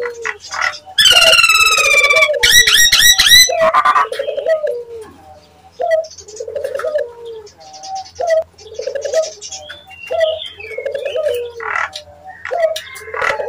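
Nias hill myna calling. Loud, piercing whistled calls come about a second in, the second set with fast up-and-down wavers. Smaller whistles follow later. Under them runs a steady series of short low cooing notes, about one a second.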